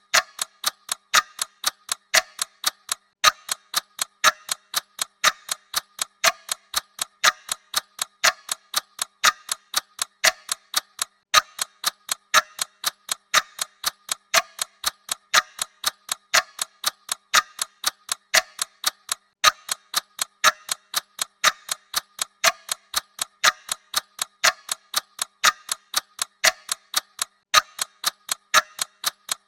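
Clock ticking sound effect: a steady, even ticking whose neighbouring clicks differ slightly, like a tick and a tock, at a constant level.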